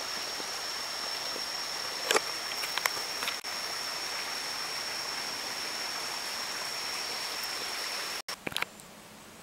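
Rainforest ambience: an even rushing hiss under a steady high-pitched drone, with a few sharp clicks two to three seconds in. It cuts off abruptly about eight seconds in, leaving a much quieter background.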